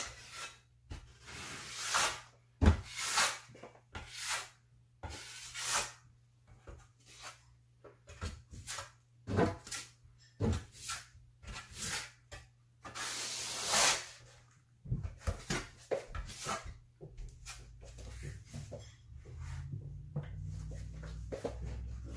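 Steel notched trowel scraping and smearing tile adhesive across a plaster wall in irregular strokes, some short and some drawn out, over a faint steady low hum.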